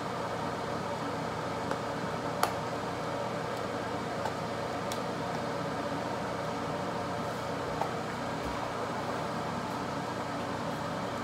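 Steady room hum like a fan or air conditioner, with a few small clicks and taps from a small makeup item being handled. The sharpest click comes about two and a half seconds in.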